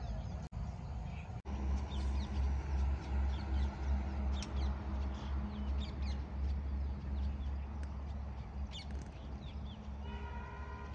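Outdoor ambience: birds chirping now and then over a steady low hum, with two brief dropouts in the first second and a half. Near the end a held pitched tone with overtones comes in.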